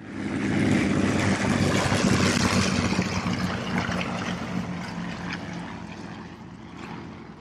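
Early propeller biplane's engine running as it flies past. It starts suddenly, then fades away gradually over the last few seconds.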